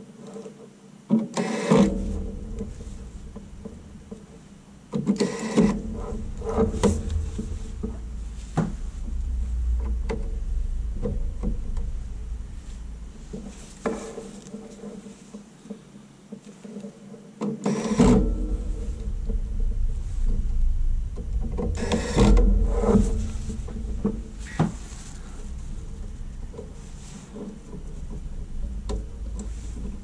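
Work noise from inside a computer chassis: irregular clicks and knocks of a small screwdriver and hands on plastic and metal parts, over a low rumble that stops for a couple of seconds in the middle.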